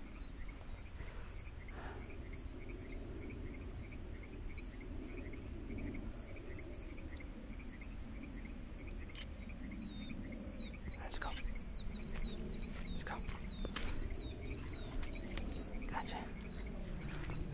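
Night insects calling: a steady high trill with a run of short repeated chirps, about two a second in the second half. Scattered sharp clicks and rustles of handling come in from about nine seconds on.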